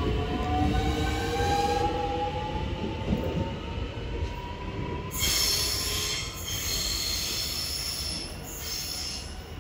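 Metro X'Trapolis electric suburban train pulling away: its traction motor whine climbs in pitch as it gathers speed. About five seconds in, high-pitched wheel squeal starts as the wheels take the curve, then fades as the train draws away.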